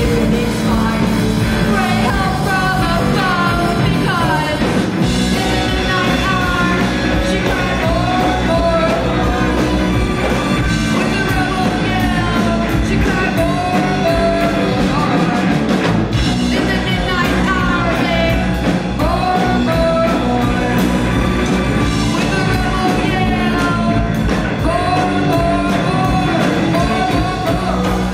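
Student rock band playing live, with a lead vocalist singing over loud electric instruments and drums.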